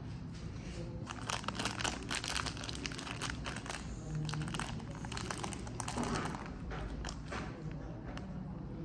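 Plastic snack wrapper crinkling as it is handled and opened by hand: a dense run of small crackles.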